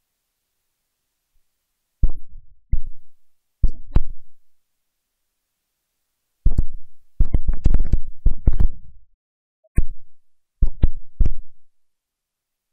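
Irregular clusters of sudden low thumps and rumbles hitting the microphone, each dying away within about half a second. The first comes about two seconds in, and the longest run is around seven to nine seconds.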